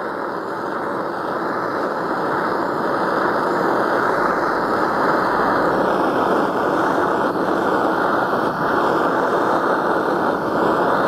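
Handheld cartridge gas blowtorch burning with a steady rushing noise of the flame, growing a little louder over the first few seconds. The flame is heating an aluminium piston's skirt to expand it so the gudgeon pin can be pushed in.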